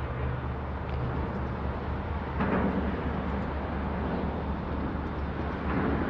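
Steady low engine rumble heard outdoors, with a faint held tone in the first second or so and brief louder swells of noise about two and a half and six seconds in.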